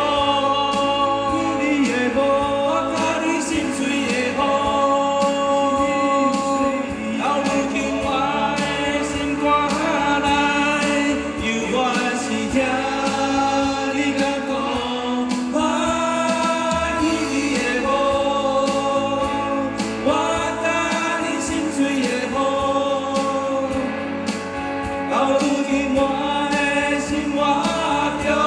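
Live band song: male voices singing together to acoustic guitars and an electric bass.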